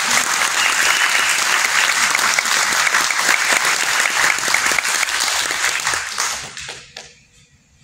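Audience applauding. The clapping fades out about six and a half seconds in.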